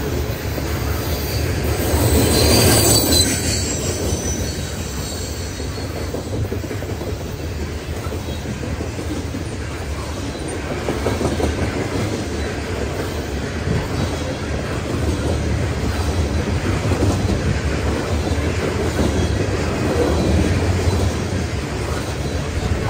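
Freight train of open-top hopper cars rolling past close by: steady rumble and clatter of steel wheels on the rails. A brief high-pitched wheel squeal rises over it about two to three seconds in.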